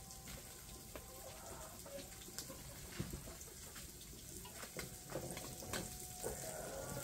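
Horse mackerel frying in hot oil in a pan: a faint, steady sizzle with a few sharp pops.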